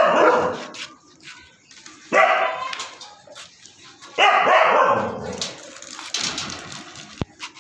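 Siberian husky barking in drawn-out, pitched barks: one ending just after the start, another about two seconds in and a third about four seconds in, then quieter.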